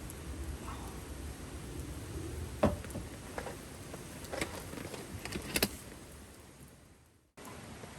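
A few sharp knocks and clicks, the loudest a little under three seconds in, over a steady low rumble and hiss; the sound then fades away and cuts off shortly before the end.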